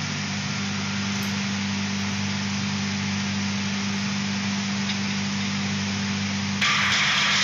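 Automatic shot blasting line for steel bars running: a steady machine hum with a low tone under an even hiss. Near the end the hiss suddenly steps up louder and harsher.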